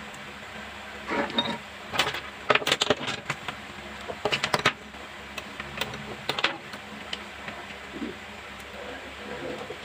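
Irregular clicking and clattering of small hard objects being handled, over a steady low hum.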